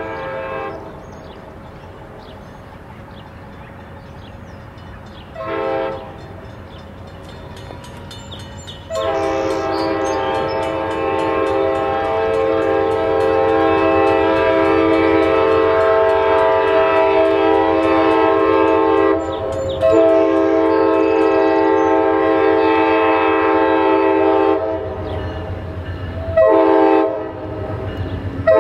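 Amtrak passenger locomotive's air horn sounding a steady multi-note chord in a series of blasts as the train approaches: a short one about five seconds in, a long one of about ten seconds from about nine seconds in, another long one, then a short one and another starting near the end. Under it the rumble of the approaching train grows louder.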